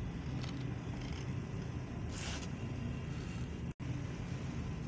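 Steady low background rumble, with a brief rustling scrape about two seconds in and a momentary cut-out near the end.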